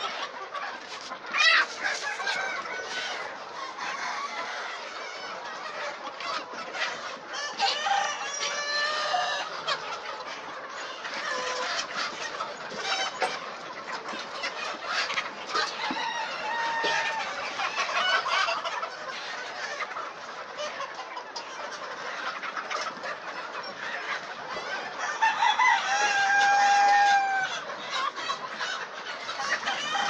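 A large flock of hens and roosters clucking and squawking over one another without pause, with a rooster crowing; a long held call near the end is the loudest.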